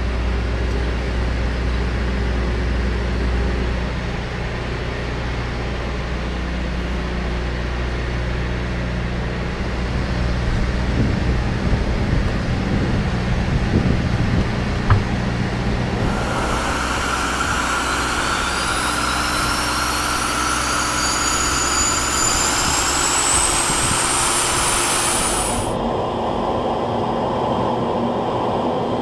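Pratt & Whitney PT6A turboprop engine of an A-29 Super Tucano starting. A steady low hum is followed, about halfway through, by a turbine whine that rises in pitch for about ten seconds. Its high part then drops away suddenly, leaving the engine running with the propeller turning.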